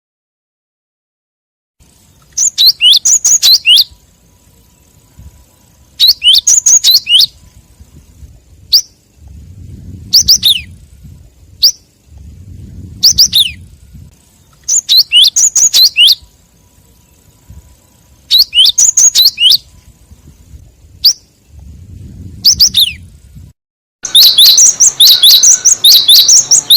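Bird-lure recording of gelatik calls: clusters of sharp, high chirps repeating every few seconds, turning into a dense run of chirping near the end. It begins after about two seconds of silence.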